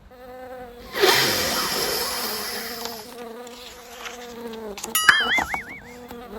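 Flies buzzing around slop, a steady droning buzz. A hissing rush comes in about a second in, and a short warbling, wavering tone about five seconds in.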